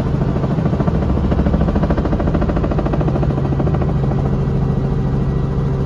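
Small helicopter in flight, heard from inside the cockpit: a steady engine and rotor drone with a fast, even pulsing.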